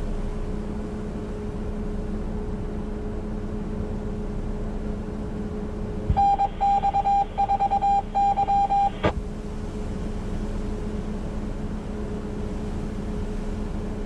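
Amateur radio receiver hissing with a steady hum; about six seconds in, a clicking key-up brings a high beeping tone in uneven on-off pulses lasting about three seconds, which stops with a click.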